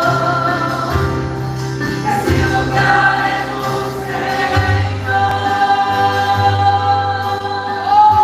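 A gospel worship band and group of singers performing a song, the voices holding long sustained notes over a steady bass line.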